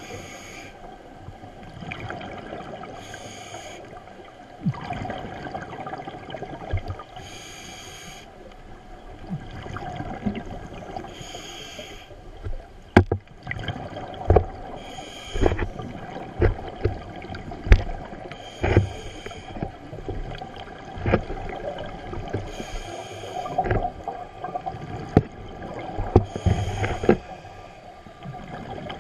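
Scuba regulator breathing heard underwater through the camera housing: a breath of hiss and exhaust bubbles about every four seconds over a steady underwater rumble, with sharp clicks and knocks scattered through, most of them in the middle of the stretch.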